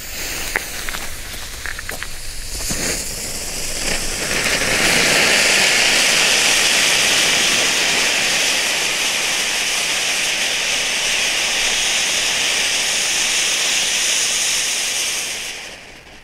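Two Nico Magic Dust ground fountains (youth-firework volcanoes) spraying sparks with a loud, steady hiss that swells up about four seconds in and dies down near the end. A few small pops from the lit fuses come first.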